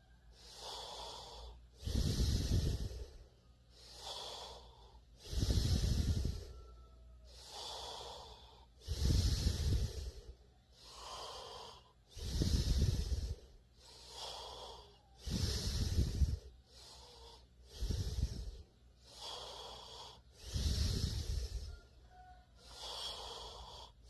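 A person snoring in sleep: a loud, low snore on each in-breath about every three seconds, each followed by a quieter breathy out-breath.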